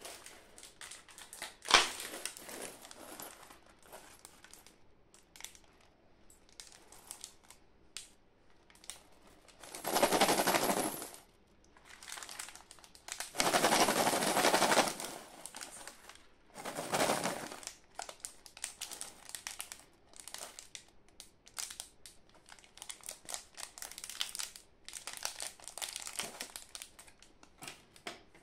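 Crinkling and rustling of plastic and foil-lined candy packets being handled, in irregular spells with louder bursts about ten, fourteen and seventeen seconds in, and a sharp click about two seconds in.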